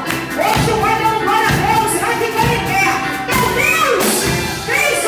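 Live worship music: a singer's voice over a band, with a regular drum beat.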